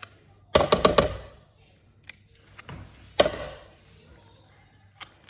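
A spoon knocking against the rim of a plastic food-processor bowl to shake off dollops of crème fraîche. There is a quick run of about four taps about half a second in, then a single sharper tap a little after three seconds, with a few faint ticks around them.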